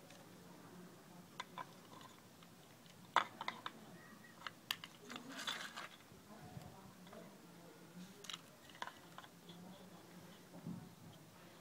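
Scattered light knocks and clicks of wooden slats being handled and fitted together by hand, with a short scraping rustle about five and a half seconds in, over a faint steady hum.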